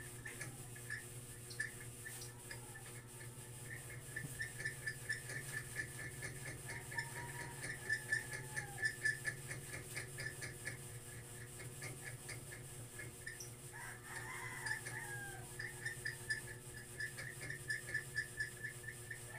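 Faint animal calls: a long run of rapid, evenly spaced high chirps, with a louder call that glides in pitch about 14 seconds in, over a steady electrical hum.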